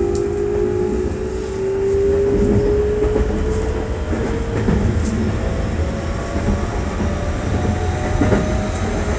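Keikyu 600 series electric train running, heard from on board: the traction motors' whine climbs steadily in pitch as the train gathers speed, over the constant rumble and clatter of the wheels on the rails.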